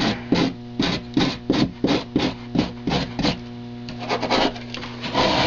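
Hand tool scraping back and forth across extruded foam to smooth it, in quick even strokes about three a second that break off after about three seconds, over a steady electrical hum.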